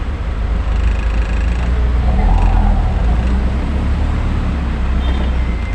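Delivery truck's engine running in traffic with a steady low rumble, a little louder about two seconds in.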